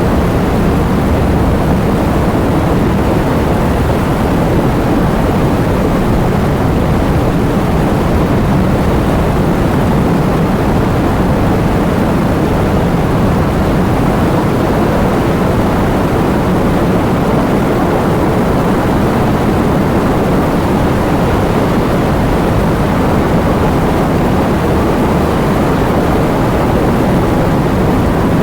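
Heavy wind and rain: a loud, steady rushing noise, heaviest in the low and middle range, with no let-up.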